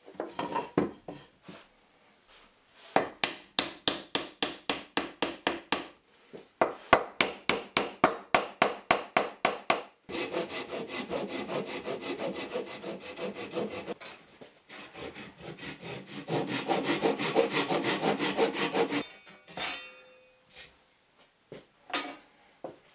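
Japanese pull saw cutting a spruce board by hand, in quick rhythmic strokes of about four a second, then faster, close-set strokes, with short pauses between runs. A few knocks near the end.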